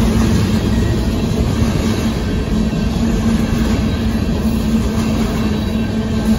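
Covered hopper cars of a Union Pacific grain train rolling past at close range: a steady loud rumble of steel wheels on the rails, with a steady low hum running under it.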